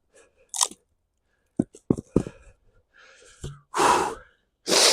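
Firewood being worked with an axe: a few sharp wooden knocks around the middle, then two louder crunching noises near the end as the tough, twisted-grain log is hit and worked apart.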